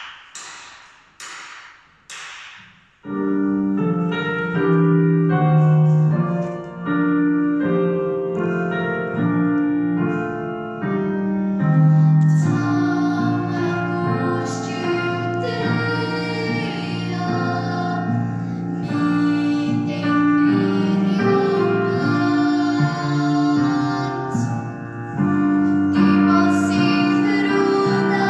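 Four short sharp taps about three-quarters of a second apart, then piano or keyboard accompaniment and voices singing a song.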